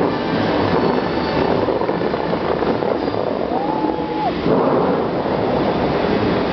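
Bellagio fountain's water jets shooting up and crashing back down into the lake, a steady dense rushing roar. A brief thin tone sounds faintly about halfway through.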